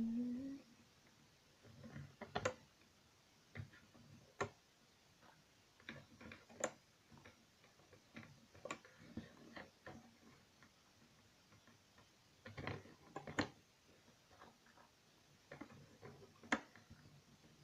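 Faint, irregular clicks and light taps of rubber loom bands being stretched and slipped onto the plastic pegs of a bracelet loom board, one sharp click every second or two.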